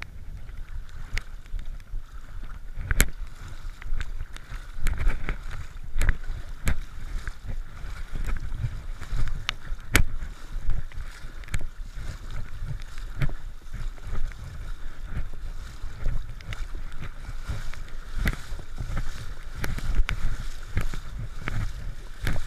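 Water splashing and sloshing around a person's legs as they wade through a shallow river, surging with each step, with irregular sharp knocks throughout.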